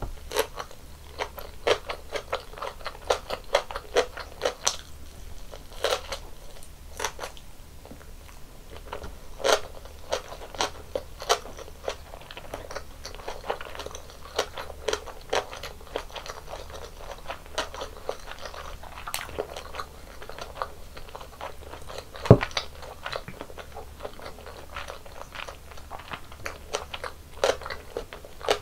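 A person biting and chewing tteokbokki and mini gimbap, with many short crunching clicks and wet chewing throughout. One sharp knock stands out about three-quarters of the way through.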